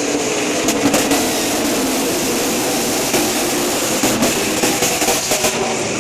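A pack of NASCAR Camping World Truck Series race trucks running their V8 engines at full throttle as they race past, many engines blending into one loud, dense sound. It swells about a second in and again from about four seconds as the trucks go by.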